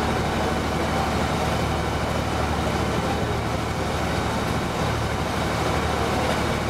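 Passenger boat's engine running steadily under way, a constant low drone with no change in speed.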